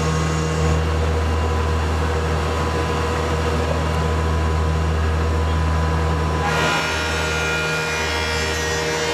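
A 37-inch wide spiral-head jointer planer with 60 horsepower of motors running with a steady low hum and steady tones. About six and a half seconds in, a brighter, higher-pitched layer joins as a walnut slab feeds into the cutterheads.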